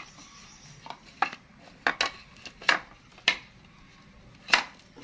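Plastic tray and yogurt cups knocking and clattering on a tabletop as they are handled: about seven short, sharp knocks at uneven intervals, the loudest near the end.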